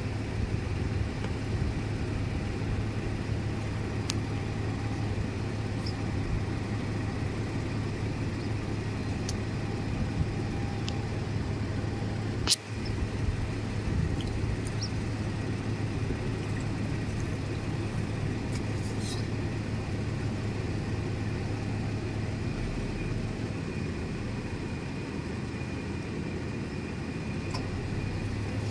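Vehicle engine idling steadily, a constant low hum under a noisy rumble, with a single sharp click about twelve seconds in.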